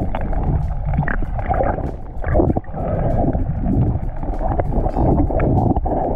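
Muffled underwater sound picked up by an action camera submerged in shallow sea: a dense rumble of moving water with scattered clicks and knocks.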